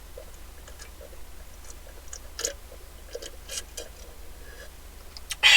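Close-miked chewing of a big mouthful of fried wedge potatoes, with soft wet crackles and small clicks. A louder burst of sound comes just before the end.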